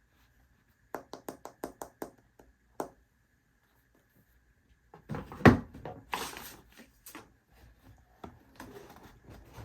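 Hands handling the unboxed phone and its packaging: a quick run of about seven light clicks, another click a moment later, then a loud thump followed by rustling and small knocks as things are set down and moved.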